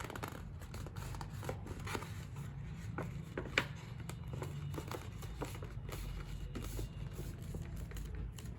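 Black cardstock being handled and folded inward along a scored line: soft rustling with small paper clicks and taps, one sharper click about three and a half seconds in.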